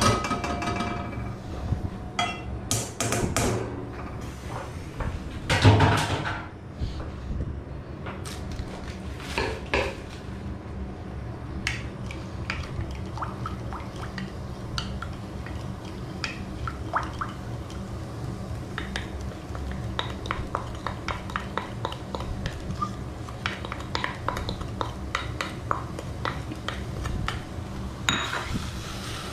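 A wooden spoon tapping and scraping in a small wok as food and sauce are added and stirred, with louder clatter of kitchenware in the first ten seconds, the loudest knock about six seconds in. Underneath runs a steady low hum.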